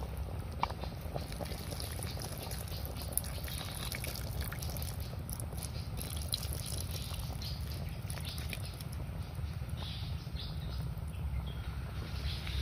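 Soup splashing and trickling as it is scooped up with a coconut-shell ladle and poured back into the wok, with scattered small clicks and crackles. A steady low rumble of wind on the microphone runs underneath.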